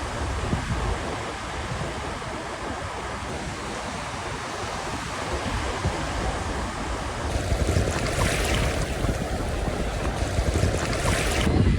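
Ocean surf washing ashore, with wind buffeting the microphone in low gusts. A brighter hiss of surf comes in about two-thirds of the way through and cuts off sharply just before the end.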